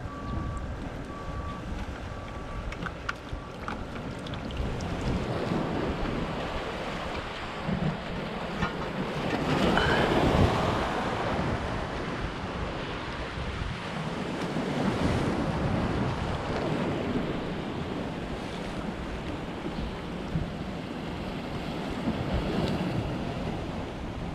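Wind buffeting the microphone over waves washing against a concrete break wall, with a louder swell of rushing noise about ten seconds in.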